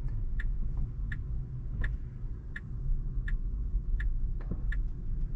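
Tesla's turn-signal indicator ticking steadily, about three ticks every two seconds, signalling a right turn, over a low cabin rumble.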